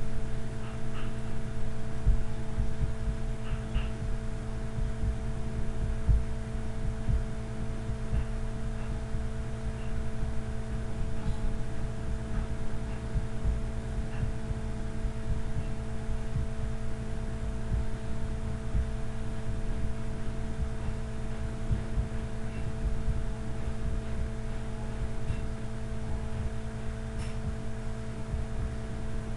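Steady hum with several fixed tones, over irregular low thuds and rumble.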